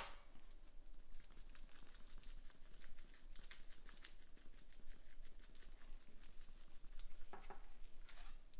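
Dry spice rub being shaken from a shaker bottle onto a raw pork butt: a soft, quick patter and ticking of rub granules, a little louder near the end.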